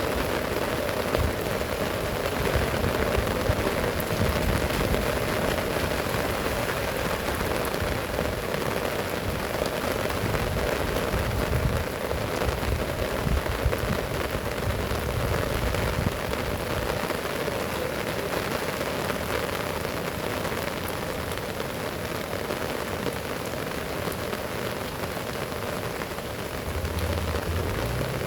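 Heavy rain falling steadily, a constant even hiss of rain on surfaces.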